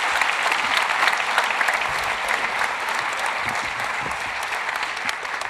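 Audience applauding: dense, steady clapping from a large crowd, easing slightly toward the end.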